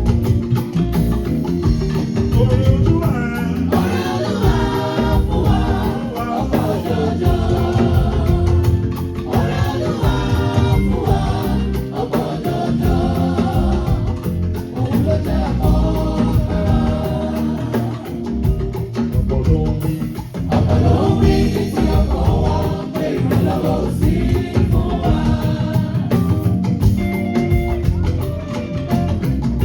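A choir singing gospel music over instrumental backing with a steady percussive beat.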